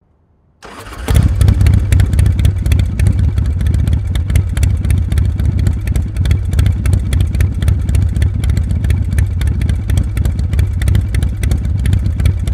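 A motorcycle engine running loudly and steadily, with a rapid, uneven pulsing beat. It starts about half a second in.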